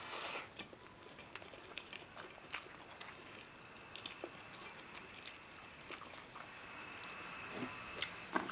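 A person chewing food close to the microphone, with small crunches and wet mouth clicks scattered throughout.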